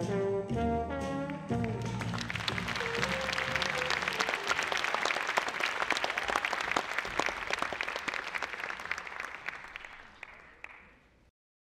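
A brass-led jazz tune ends on its last chords about a second and a half in, and an audience applauds. The clapping fades out and stops shortly before the end.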